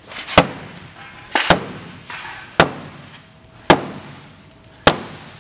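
A hammer swung two-handed repeatedly strikes the Volkswagen Beetle's plastic front fender: five sharp whacks about a second apart, each dying away quickly.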